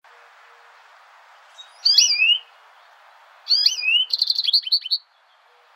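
American goldfinch calling: a sweet, bending call about two seconds in, then another about a second later that runs on into a quick series of short notes. A faint steady hiss lies underneath.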